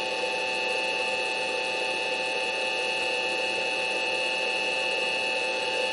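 Steady electric motor hum from a small benchtop mill, with several constant high whining tones and no cutting or changes in speed.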